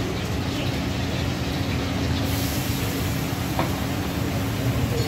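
High-pressure gas burner under a wok running steadily. About two seconds in a brighter sizzling hiss starts up as food hits the hot wok, and a metal ladle clinks against the wok a couple of times.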